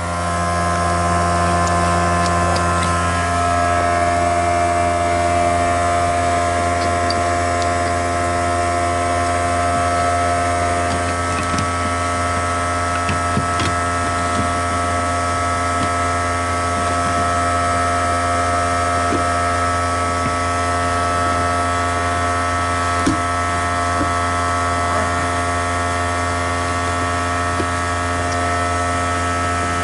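Filter Queen Majestic vacuum's exposed brushed motor running steadily, humming with many steady tones, while its carbon brushes are being seated against the commutator with a brush-seating stone.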